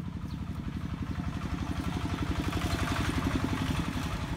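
A small engine running steadily with a fast, even pulse, unseen, growing a little louder about three seconds in.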